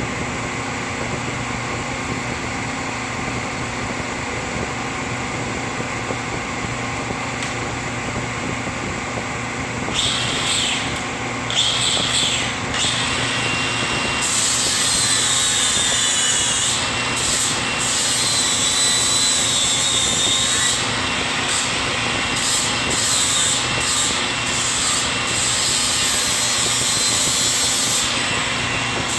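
A steady machine hum, then from about ten seconds in a cordless 4-1/2-inch angle grinder grinding metal in repeated passes. The harsh hiss of the disc cuts in and out as it meets and leaves the work.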